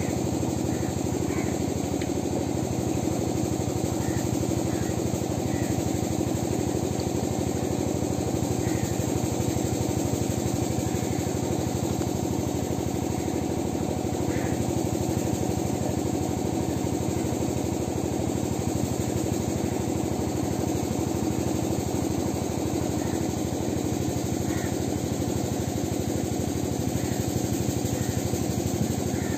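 An engine running steadily, a constant unchanging hum, with faint short high chirps now and then.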